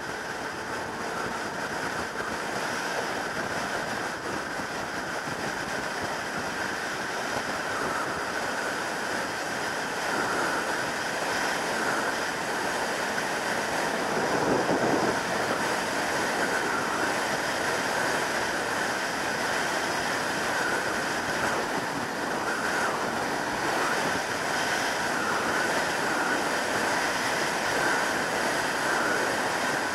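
Steady rush of wind and road noise on the microphone of a 2003 Yamaha YZF600R Thundercat sport motorcycle ridden at motorway speed, with a brief swell about halfway through and growing a little louder toward the end.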